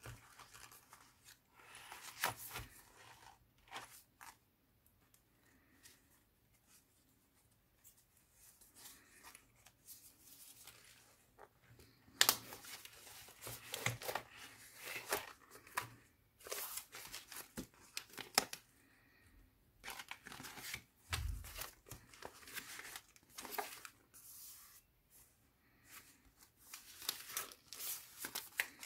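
Stiff paper and card pages of a handmade junk journal being turned and handled, rustling and crinkling in irregular clusters with quieter pauses between. The busiest stretches come about 12 s in and again towards the end.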